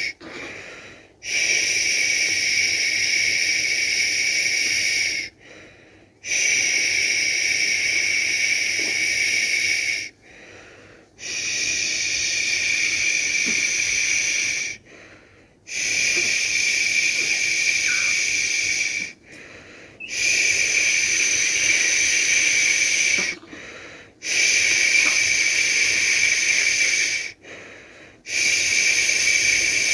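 A person's voice making long, steady 'shhh' shushing sounds to lull a baby to sleep. Each shush lasts about three to four seconds, with a short pause of about a second between them, seven times in a row.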